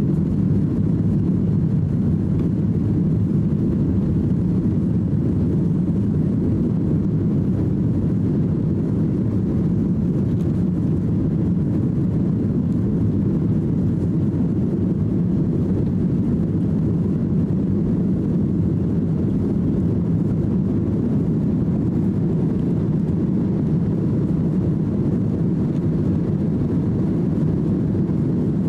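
Boeing 737-800 cabin noise heard from a seat over the wing: a steady, loud low rumble of the CFM56 jet engines and airflow during the climb after takeoff.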